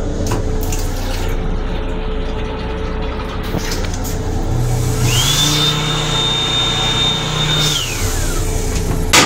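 A small electric motor in an M7 railcar restroom runs up to a steady high whine, holds it for about two and a half seconds, and winds down, over the steady low rumble of the railcar.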